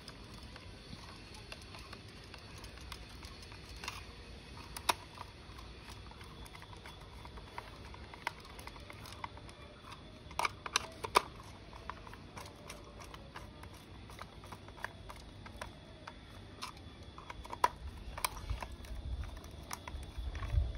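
A small screwdriver turning screws into a plastic toy car body: faint, scattered clicks and ticks of the metal tip and the plastic being handled, with a few sharper clicks.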